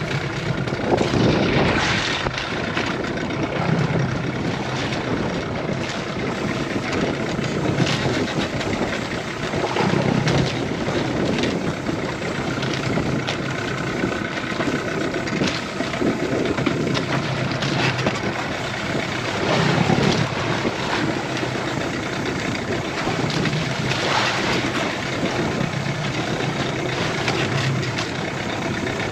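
Boat engine idling steadily, kept running to hold the boat in a strong current, with the sound swelling every few seconds.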